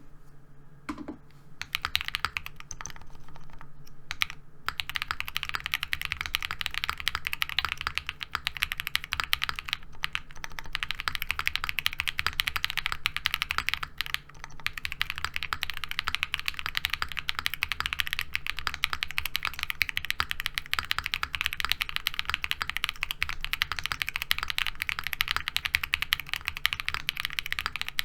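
Fast continuous typing on a Qwertykeys QK60 aluminium-case mechanical keyboard with hand-lubed KTT Rose linear switches and PBT keycaps: a dense run of keystroke clacks, with short pauses about four and fourteen seconds in.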